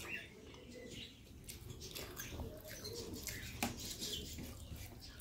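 Fingers mixing rice and fish by hand on a plate: soft squishing with a few faint clicks.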